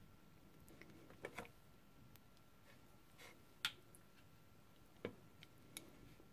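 Near silence: room tone with a few faint, sparse ticks and taps of a paintbrush against the paper and the watercolour paint box. The tap about halfway through is the loudest.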